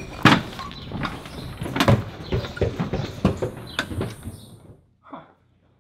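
Footsteps of a couple of people stepping in through a front door, a run of irregular knocks and scuffs, then the door swinging shut, after which the sound cuts off suddenly.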